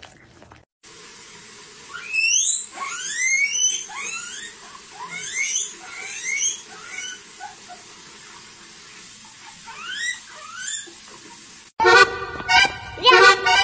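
Guinea pig squealing over and over while held under a running tap, a string of sharp rising squeals over the steady hiss of the water. Near the end it cuts abruptly to accordion music.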